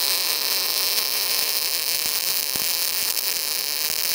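MIG welding arc burning steadily on steel: a continuous frying hiss with a few faint pops.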